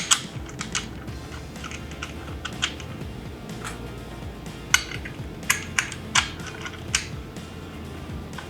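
Metal bracket hardware clicking and clinking in short, irregular knocks as a mounting bracket and its bolts are fitted loosely onto a slip-on motorcycle muffler, over quiet background music.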